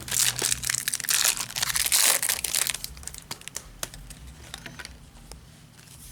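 Foil baseball-card pack wrappers crinkling and tearing as packs are opened, with small clicks of the cards being handled. It is loudest in the first couple of seconds and dies down toward the end.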